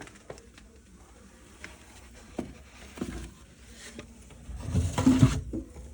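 Handling noises as parts are put back into the bottom of a wooden grandfather clock case: a few light knocks, then a louder rustling, scraping clatter about five seconds in.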